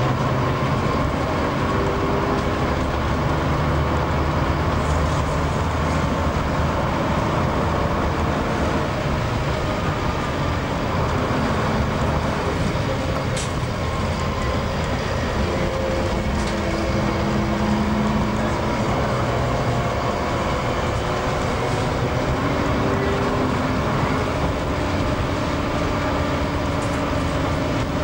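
Bus engine running under way, heard from inside the bus, with road noise and body rattle. The engine note shifts up and down in pitch, and a few sharp clicks and knocks come through.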